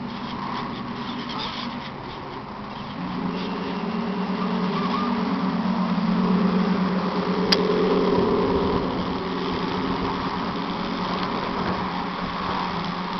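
Model Mersey-class lifeboat's Action Electronics sound unit playing a steady simulated diesel engine rumble. The rumble swells about three seconds in as the boat comes closer, and eases off again later. A single sharp click about halfway through.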